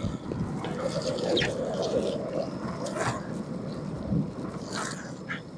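Longboard wheels rolling over wet asphalt: a steady watery hiss from the damp road surface, with a few short sharp clicks from the wheels about a second and a half, three and five seconds in.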